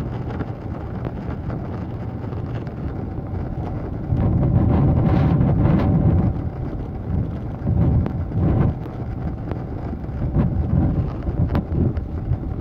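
Boeing 777-300ER cabin noise heard from a window seat as the airliner rolls on the ground: a steady hum from its GE90 engines over a low rumble from the airframe and wheels. It grows louder about four seconds in and swells again a few times.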